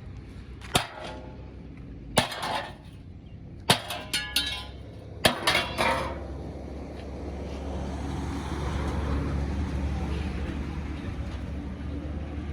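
About six sharp hammer blows on metal, each with a short ring, spread over the first six seconds. Then a vehicle engine runs steadily, growing louder through the middle and easing slightly near the end.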